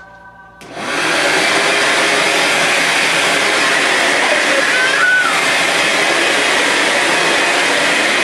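Vacuum cleaner switched on under a second in, its motor quickly reaching full speed and then running with a loud, steady rush of air.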